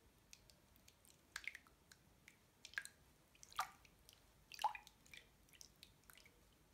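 Bare feet moving in a basin of water, making faint sloshes and plops; four louder plops, each with a quick falling pitch, come about a second apart in the middle.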